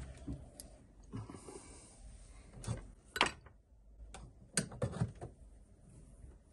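A series of sharp clicks and knocks, about six over a few seconds, from hard parts of the signal lamp and its battery pack being handled and fitted together.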